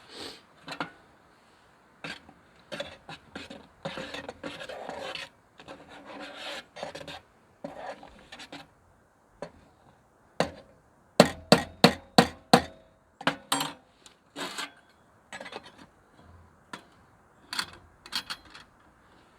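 Scraping and rubbing with scattered clicks, and a quick run of about six loud, sharp knocks a little past halfway.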